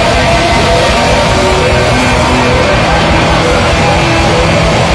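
Very loud noise-rock played by a band of rock rhythm-section instruments: a dense, unbroken wall of sound with some held pitches.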